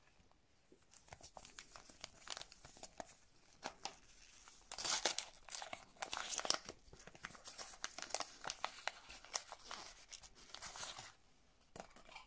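Yellow paper packet of a replacement mineral watch crystal being opened by gloved fingers: a run of crinkling, crackling paper that is loudest about five seconds in and stops about a second before the end, followed by a single light click.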